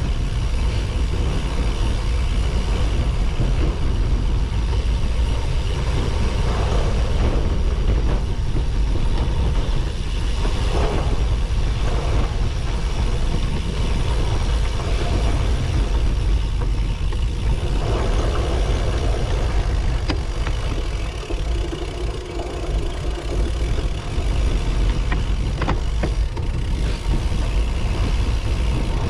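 Steady low rumble of wind buffeting the microphone as a gravel bike rides along a dirt trail, with the tyres rolling and rattling over the packed dirt. The rumble eases a little about two-thirds of the way through.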